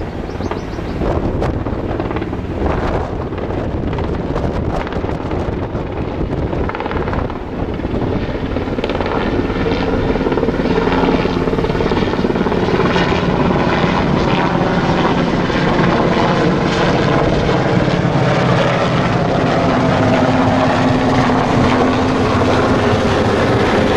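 Sikorsky S-92 search-and-rescue helicopter flying low overhead, its rotors and turbines running loudly. From about halfway a steady hum sits in the noise as it passes close.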